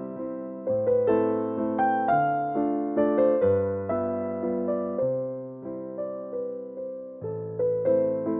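Background music: a piano playing a slow, gentle melody over chords, each note struck and fading away.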